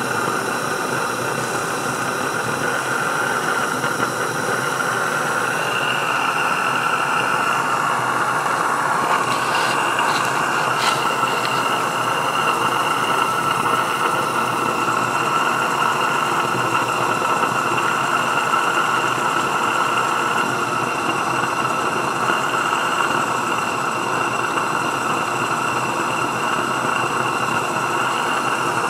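16mm-scale live steam model of a Baldwin 8-12D Mogul running on the bench with its wheels turning free, its cylinders giving a steady, fast chuff with steam hiss. It is fed live steam from a stationary boiler during a bench test.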